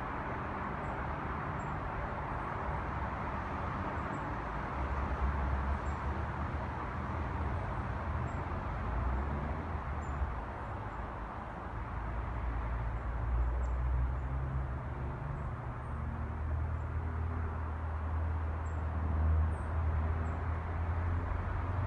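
Distant city traffic: a steady hum of road noise with a low rumble that swells several times as vehicles pass, and a few faint high bird chirps now and then.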